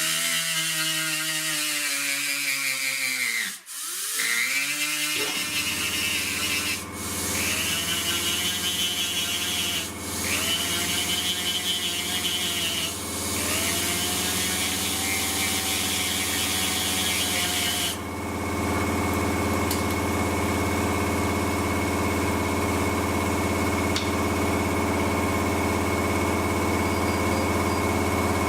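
Handheld power tool running in short runs, its pitch gliding down and up, and each run starting with a rising whine. From about two-thirds of the way through, it settles into a steady high whine over a low hum.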